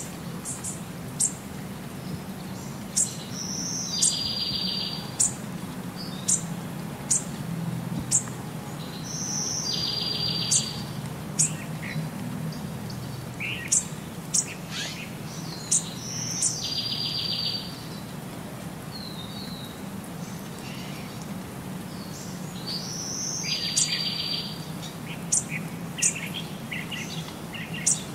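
Birds chirping: short, sharp high chirps every second or so, with a longer buzzy call every six or seven seconds, over a steady low hum.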